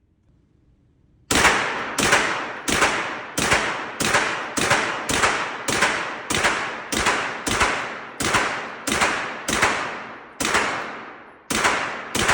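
A firearm fired rapidly on a shooting range, about sixteen shots at roughly one and a half per second, starting about a second in. Each shot is followed by a long echoing tail.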